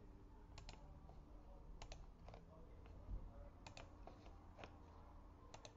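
A few faint, sharp clicks of a computer mouse, some in quick pairs, against near silence.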